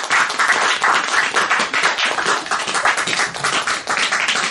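Small audience applauding at the close of a performance, many hands clapping together.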